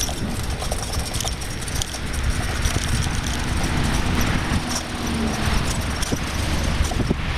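A bicycle rolling over brick pavers: steady tyre rumble and rapid rattling clicks, with wind on the microphone. A pickup truck's engine passes close by around the middle.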